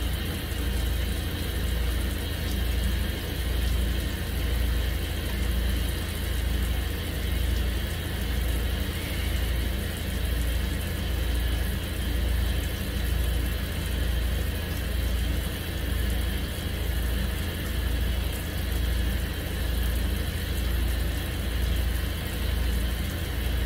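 Tap water running steadily into a stainless steel sink during handwashing, under a low hum that swells and fades about once a second.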